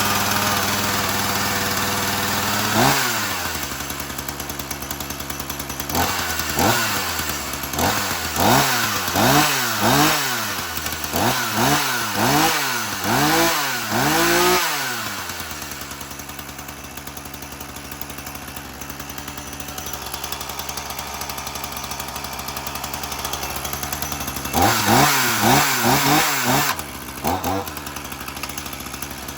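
Ryobi two-stroke gas chainsaw running just off choke: it idles, then is revved in quick repeated throttle blips for about twelve seconds, settles back to a steady idle, and is blipped again near the end.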